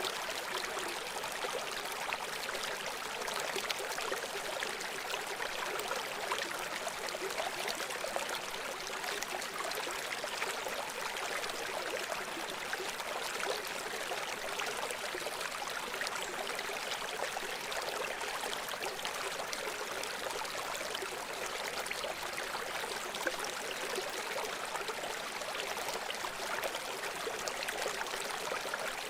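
River water flowing and burbling steadily over stones, a constant rushing with fine splashes.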